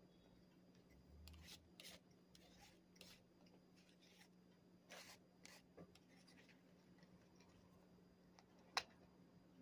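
Faint scattered rustling and scraping from handling something at a table, with one sharp click near the end, over a faint steady low hum.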